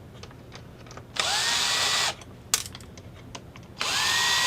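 Electric drill-driver running twice, about a second each time, its motor whine rising quickly and then holding steady, while screws are backed out of the appliance's case during disassembly. Small clicks of handling between the two runs.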